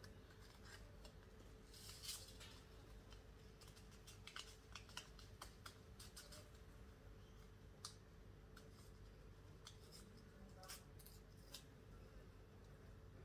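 Faint, irregular small clicks and rustles of leaves being handled and picked from a garden plant. The clicks come at uneven spacing, with a quick cluster around the middle.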